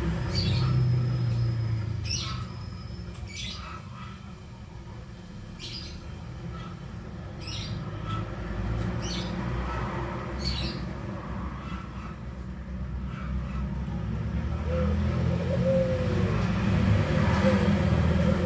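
Birds calling over a low steady rumble: short, sharp chirps about every second and a half, then lower gliding calls near the end.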